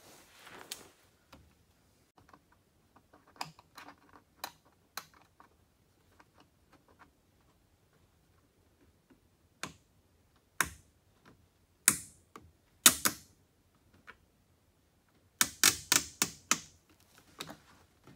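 Small plastic clicks and ratcheting from zip-tie clips being fed through rubber grommets and pulled tight on a carbon fibre rear diffuser. The clicks are scattered at first, with a few sharper snaps past the middle, then a quick run of clicks near the end.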